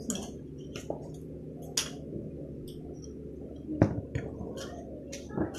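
Small clicks and taps of a spoon and food containers handled on a table, with one sharp loud knock about four seconds in, over a steady low hum.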